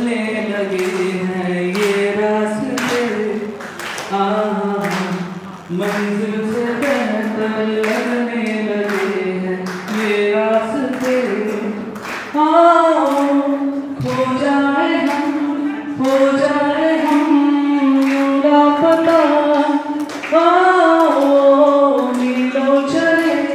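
A song with a singing voice over light, regular beats; about halfway through the melody moves higher and gets louder.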